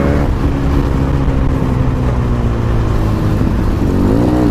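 Benelli TNT 300's parallel-twin engine through an aftermarket Akrapovic exhaust, running under way at steady revs. The pitch drops shortly after the start, then dips and climbs again near the end.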